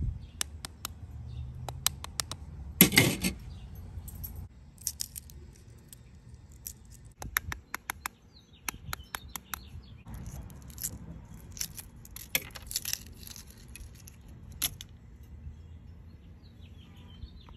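Kitchen knife tapping the shells of hard-boiled eggs: runs of quick, sharp clicks, a louder cluster about three seconds in, then scattered clicks and crackling as the cracked shell is broken and peeled off.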